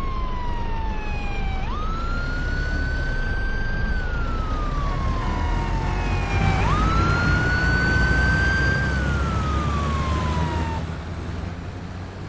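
Electronic emergency-vehicle siren wailing in slow cycles, each a quick rise in pitch that climbs on, holds, then slides slowly down, twice over a steady low rumble of road noise; it stops about 11 seconds in.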